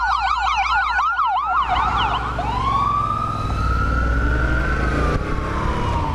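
Emergency vehicle siren on a fast yelp that changes about two seconds in to a slow wail, rising and then falling away. A motorcycle engine, the rider's Yamaha MT-07 parallel twin, runs underneath as the bike moves off.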